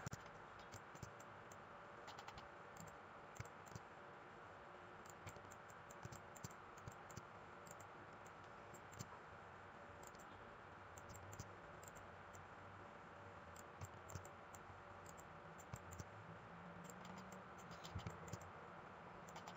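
Near silence: low steady room hiss with faint, irregular clicks from a computer mouse and keyboard.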